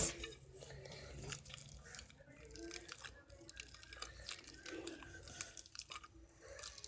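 Sticky slime being pulled and squished by hand, giving faint irregular wet clicks and crackles as it stretches and peels away from the container.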